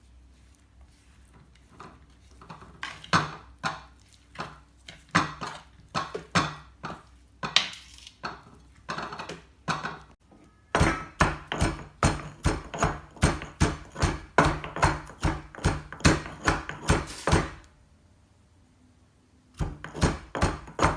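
Onion, ginger, garlic and curry leaves being crushed in a small stone mortar with a pounding stone: repeated strikes, slower and uneven at first, then after a brief break a faster steady run of about three strikes a second, pausing briefly near the end before starting again.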